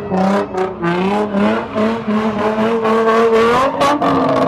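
Honda Civic's four-cylinder engine through a loud aftermarket "fart can" muffler, revved hard and held high in repeated short bursts, the note cutting briefly every fraction of a second.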